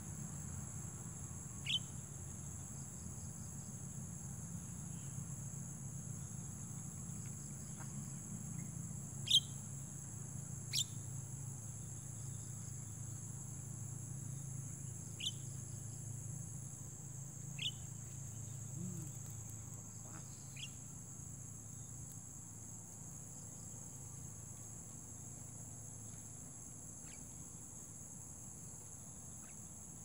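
Steady high-pitched buzz of crickets and other insects, with short, sharp, rising chirps every few seconds, the loudest two near the middle.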